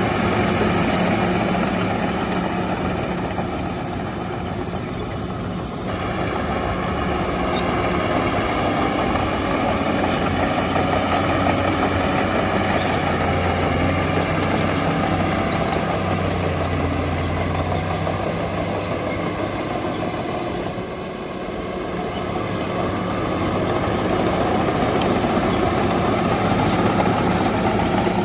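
Shantui DH17 bulldozer's diesel engine running steadily as it works. The engine sound eases off briefly twice, about a fifth of the way in and again about three quarters of the way in, then comes back up.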